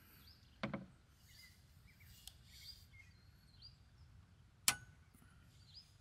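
Quiet room ambience with faint bird chirps, broken by a soft knock under a second in and a sharp click near five seconds.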